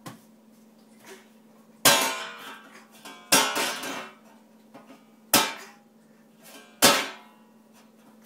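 A toddler drumming with his hands on a stainless steel trash can and a door: four loud slaps, each ringing out briefly.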